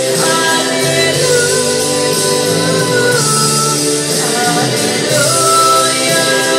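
A woman singing into a handheld microphone over loud recorded backing music, holding long notes and sliding between them.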